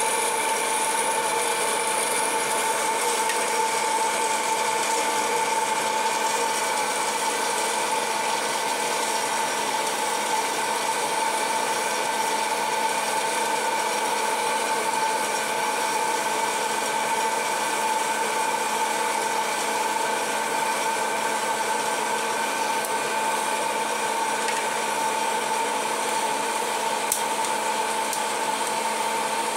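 Orville Redenbacher hot-air popcorn popper running: its fan motor blows a steady whir with a constant hum-like tone. There is one sharp click near the end.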